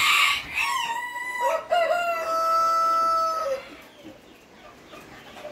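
A rooster crowing once: one long crow, about three seconds, that climbs at first and then holds a steady high note before breaking off.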